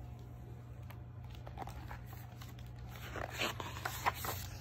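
Hardcover picture book being handled: soft paper rustles and light clicks over a steady low hum, coming more often in the last second and a half as the book is moved.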